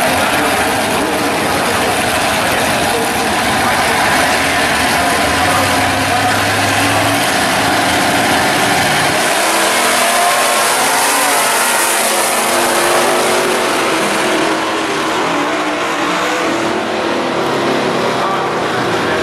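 Two drag-racing cars' engines running loud at the starting line, then launching about nine seconds in with a rising engine note that eases off after a few seconds as the cars pull away down the strip.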